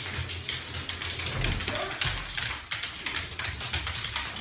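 A dog's claws clicking rapidly and irregularly on a hardwood floor.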